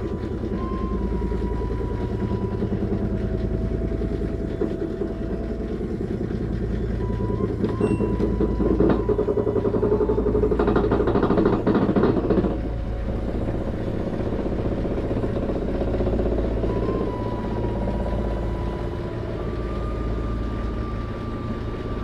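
LG front-load washer running, giving a steady low, rough growl with vibration. It swells louder for a few seconds around the middle, then settles back. The growl is the symptom the washer was diagnosed with, traced to a faulty drain pump.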